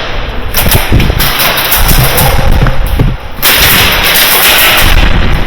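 Airsoft guns firing long bursts of rapid shots, in two stretches with a brief break about three and a half seconds in.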